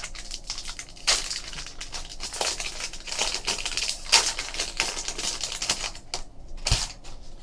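2015 Bowman Chrome baseball cards being flipped through in the hands: a rapid run of light snaps and rustles of card stock, with a heavier knock near the end.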